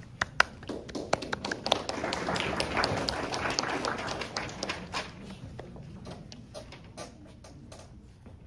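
Small audience clapping in scattered, uneven claps that thicken about two seconds in, then thin out and fade away.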